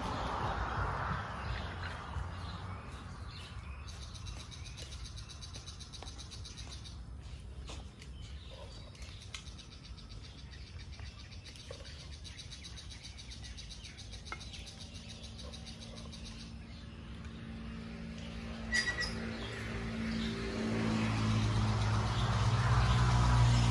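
Birds chirping in the background, with scattered faint clicks. Over the last few seconds a low engine hum rises and becomes the loudest sound.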